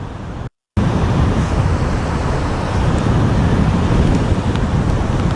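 Strong wind buffeting the microphone in a low, steady rumble, over ocean surf breaking on the beach. The sound cuts out for a moment about half a second in, then returns louder.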